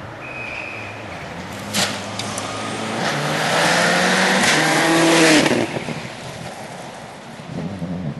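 Subaru Impreza rally car's turbocharged flat-four engine at speed on gravel. Its note climbs as the car closes in, is loudest about five seconds in as it passes, then drops in pitch and fades as it drives away. There is a sharp knock near two seconds in.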